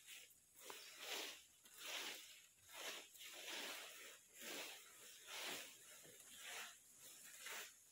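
Rakes scraping and sweeping through a thick layer of dry, crackly rubber-tree leaves, in a steady rhythm of about one stroke a second.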